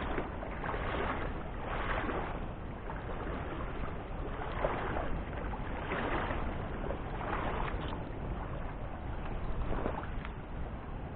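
Legs wading through a river, the water swishing and splashing in swells with each stride, about every second or two, over a low rumble.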